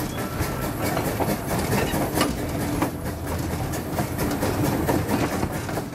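A 0-4-0 narrow-gauge steam locomotive under way, heard from its cab: a steady running noise with many sharp, irregular clicks and knocks.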